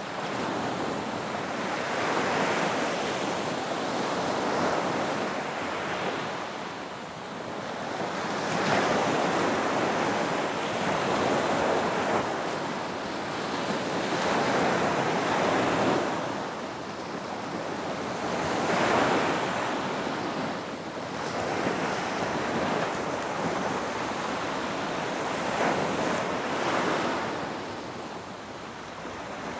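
Ocean waves breaking on a beach, a continuous wash of surf that swells and recedes every few seconds, with some wind.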